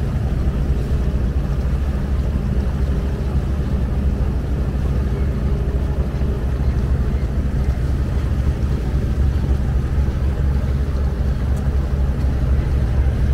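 Diesel engine of an abra water taxi running steadily under way, a low even drone that does not change.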